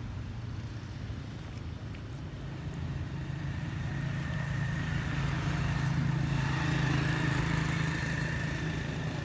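A motor vehicle's engine running steadily, growing louder from about three seconds in and staying loud through the rest.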